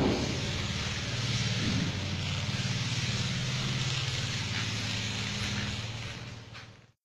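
A steady low mechanical hum under an even hiss, with a brief knock right at the start; it fades out near the end.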